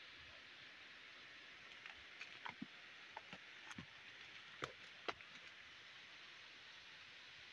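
Faint steady hiss of forest ambience with a scattering of small snaps and crackles of dry twigs and leaf litter, the two sharpest a little past the middle.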